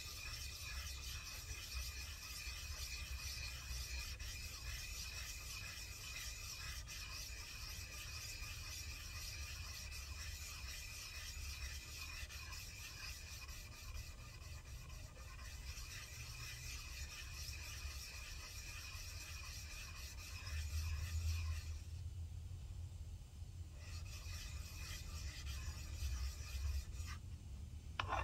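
A vise's moving jaw being rubbed back and forth by hand on a wet abrasive sheet, a continuous gritty scrubbing as the jaw face is flattened. The strokes pause briefly about three quarters of the way through, then resume.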